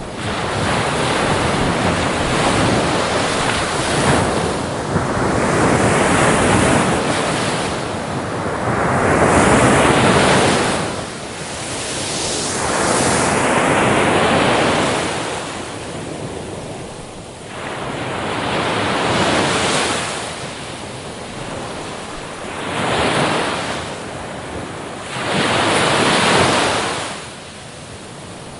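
Sea waves breaking and washing onto the shore, swelling and falling back in surges every three to six seconds.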